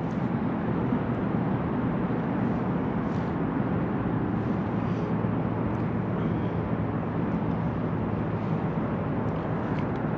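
Steady rumble of distant city traffic, an even wash of noise with no change.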